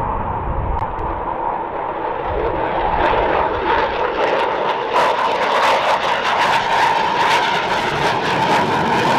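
F-16 fighter's jet engine on a low pass: a steady whine with a rushing noise that grows louder and harsher, taking on a crackle about halfway in.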